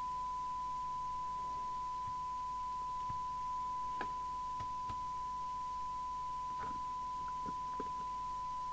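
Steady 1 kHz test tone from the CB radio's speaker as the set receives a modulated signal from a signal generator. A few faint clicks come in the second half.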